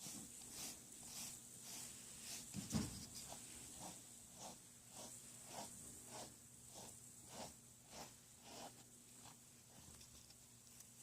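Pet brush drawn through fur in short, even rasping strokes, about two a second, fading out near the end; a soft thump about three seconds in.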